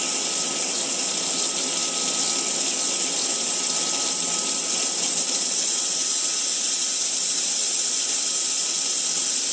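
Wire EDM machine cutting aluminium: a steady, dense hiss of the sparking and the dielectric water flushing through the cut.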